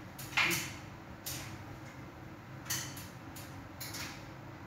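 Household cleaning and handling noises: about four short scraping or brushing strokes, the first and loudest about half a second in, over a low steady background.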